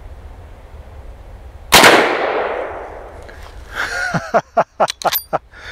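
A single shot from a .444 Marlin lever-action rifle firing a 265-grain Hornady jacketed soft-point load: one sharp, loud crack about two seconds in, with a long echoing tail.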